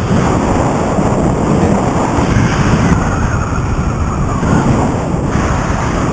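Wind rushing and buffeting over the microphone of a powered paraglider in flight, with no engine note: the paramotor's engine is out and the wing is gliding.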